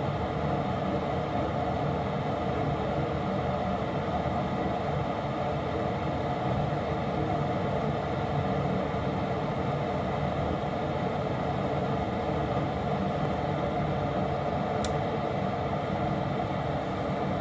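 Newly installed gas furnace running on its first firing: the blower fan gives a steady whir while the burners are lit. A faint click comes near the end.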